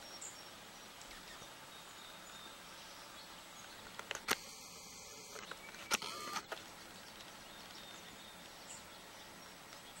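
Quiet outdoor ambience with a few faint, brief high bird peeps. About four seconds in comes a sharp click, and a second comes about a second and a half later.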